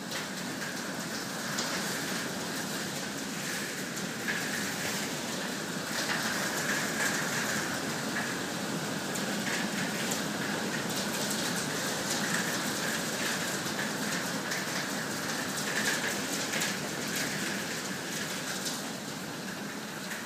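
Heavy hail pelting down with rain: a dense, steady hiss of falling ice and water, peppered with many sharp clicks of individual hailstones striking the ground and plants.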